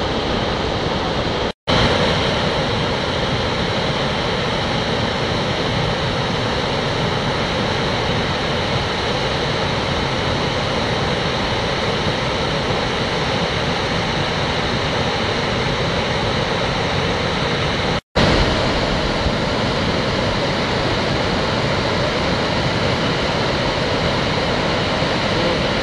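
Victoria Falls' water rushing down the gorge: a loud, steady roar of noise, broken twice by a brief silent gap, about one and a half seconds in and about eighteen seconds in.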